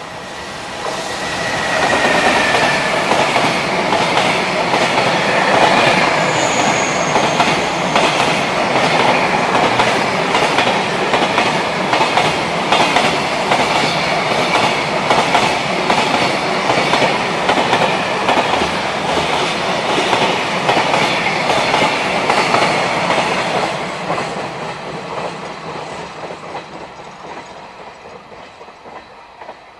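A JR Freight EF210 electric locomotive passing with a long train of mostly empty container flatcars, wheels clattering over the rail joints. It is loud for about twenty seconds, then fades as the train moves away. A whine falls slightly in pitch as the locomotive goes by in the first few seconds, and a brief high squeal comes about seven seconds in.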